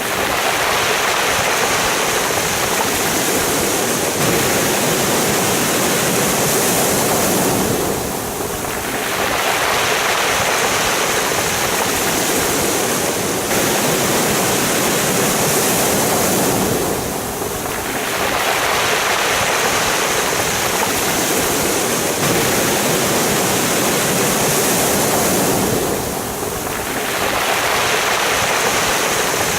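Sea waves washing over a pebble beach: a continuous rushing hiss of surf and shifting pebbles that dips briefly about every nine seconds, three times.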